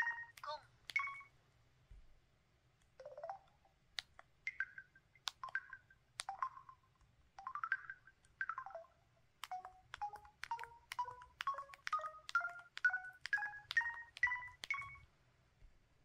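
Keypad button tones of an LG-SV280 Cyon mobile phone, one short electronic blip per key press, each starting with a click. In the second half, about a dozen two-note beeps climb step by step in pitch like a musical scale.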